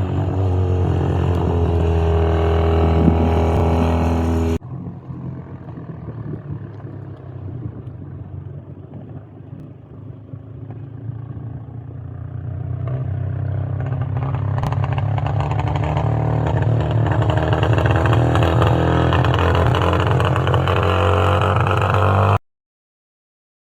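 Classic racing vehicle engines at high revs on a hill-climb course: one loud engine that cuts off abruptly about four and a half seconds in, then another that grows steadily louder as it approaches, ending in a sudden cut to silence near the end.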